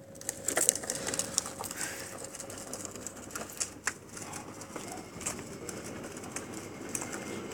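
Child's bicycle with small training wheels rolling over asphalt, with scattered light clicks and rattles.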